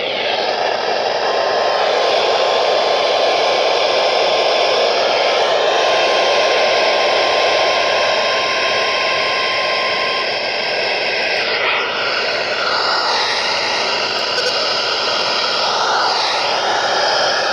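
Loud hiss of static from a weather radio receiver, with a faint steady tone under it for about nine seconds and faint wavering tones near the end.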